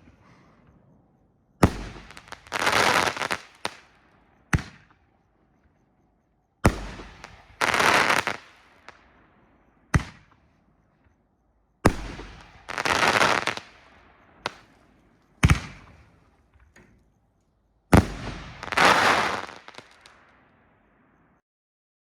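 Sky Zilla Killa consumer fireworks cake firing its shots. Four times a sharp launch bang is followed about a second later by a loud crackling burst of about a second as the crackling ring breaks. Single sharp bangs from other shots come in between.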